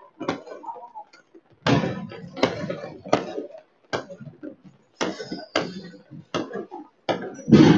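Fireworks and firecrackers going off across the city: about a dozen sharp bangs at irregular intervals, each with a short echoing tail, the loudest near the end.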